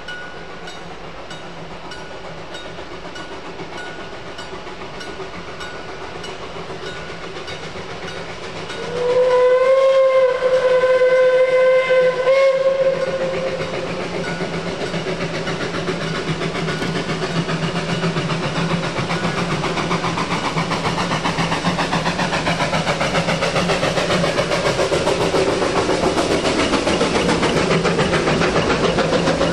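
Steam locomotive 12A, a narrow-gauge NA class 2-6-2T tank engine, sounds its Victorian Railways five-chime whistle once, about nine seconds in. The chord rises slightly at the start, holds for about three and a half seconds and cuts off. Under and after it the locomotive runs steadily, and its exhaust beats get louder and faster toward the end as it works harder.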